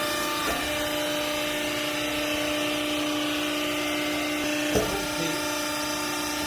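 Hydraulic baler's pump and motor running with a steady hum, with one sharp knock about three quarters of the way through.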